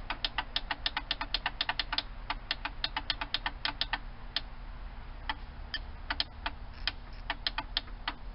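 Starter solenoid on the boat's inboard engine clicking rapidly and unevenly while the engine does not crank, at about four to six clicks a second, thinning out around the middle. This is the sign of a stuck starter that the owner is trying to free.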